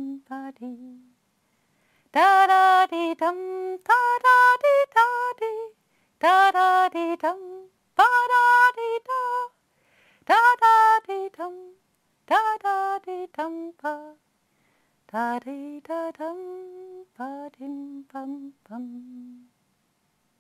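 A woman singing a slow melody unaccompanied, in short phrases with brief silences between them.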